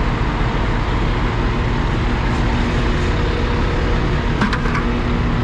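Diesel engine of heavy farm harvesting machinery running steadily at close range, a loud drone with a low steady hum. There is a short clatter about four and a half seconds in.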